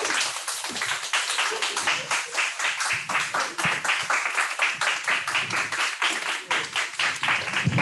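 A small audience clapping: many quick, irregular claps that keep up throughout.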